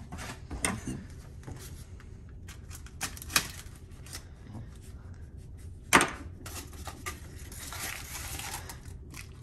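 A small box and its packaging handled and opened by hand: scattered taps and knocks, one sharp knock about six seconds in, then a few seconds of rustling near the end.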